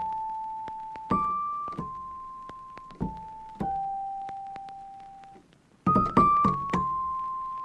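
Slow background piano music: single held notes that fade away one after another, with a quicker run of notes about six seconds in.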